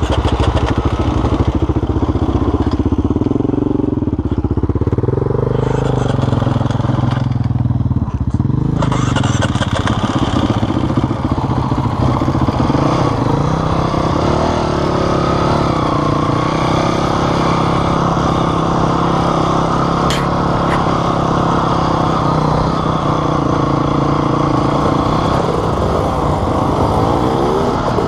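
Dirt bike engine running as the bike rides along a loose gravel track. Its revs rise and fall for the first several seconds, then hold fairly steady.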